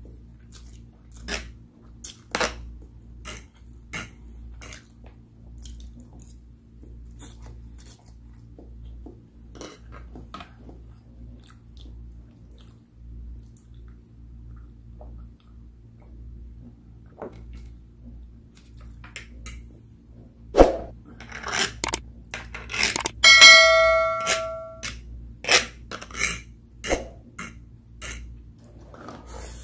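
Close-up eating sounds: a metal fork clicking and scraping on a plate, with chewing of instant noodles, over a steady low hum. About 23 seconds in comes the loudest sound, a sharp clink that rings on for about a second and a half.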